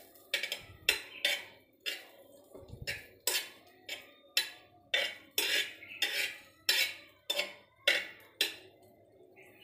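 Metal spoon clinking and scraping against the bottom and sides of a pressure cooker while stirring melting butter. The repeated clinks come about twice a second and stop about a second before the end.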